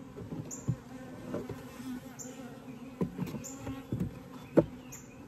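Honeybees buzzing around an open hive, a steady hum, with a few knocks as frames are handled; the loudest is a sharp knock about four and a half seconds in.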